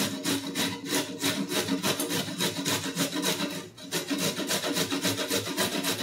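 Carrots being grated by hand on a stainless-steel box grater: quick, rhythmic rasping strokes, several a second, with a short pause just before the middle.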